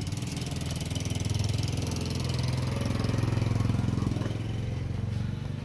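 A motorbike engine running, growing louder through the middle and easing off near the end, like a bike passing by.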